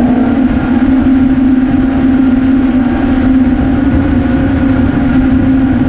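Brushless motors of an Alien 5 FPV racing quadcopter humming at a steady pitch, with a low rumble underneath.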